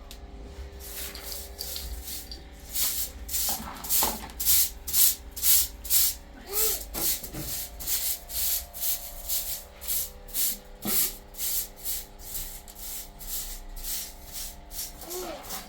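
Rhythmic scraping or brushing strokes, about two a second, louder in the middle, over faint steady background tones.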